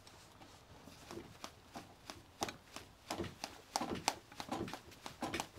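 Handling noise: quiet, irregular taps and knocks, more frequent in the second half.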